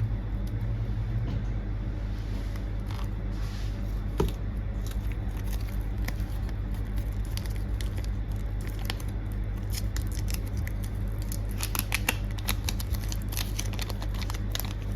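Light clicks and taps of small hand tools on a phone, over a steady low electrical hum; one sharper click about four seconds in, and a denser run of clicks near the end.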